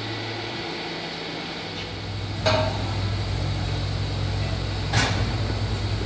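Steady hum of milking-shed machinery, with two sharp knocks about two and a half seconds apart.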